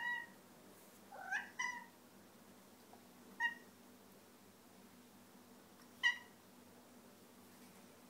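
Domestic cat giving five short, high meows, the first ones rising in pitch, asking to be let out through the door.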